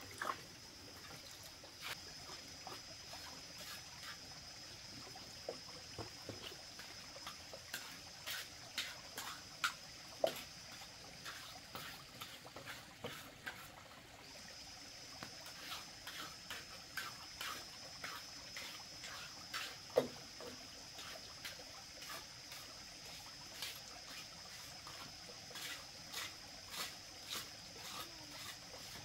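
Light, irregular taps and scrapes of a hand trowel working wet cement on a floor, over a steady high insect drone that breaks off briefly about halfway through.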